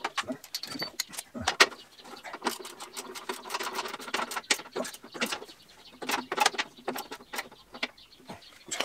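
Irregular metallic clinks and knocks of a scooter exhaust muffler and its pipe being handled and fitted by hand onto a small engine.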